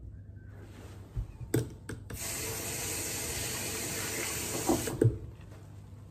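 Water running or pouring in a bathtub for about three seconds, starting and stopping abruptly, with a few knocks and splashes just before and as it stops.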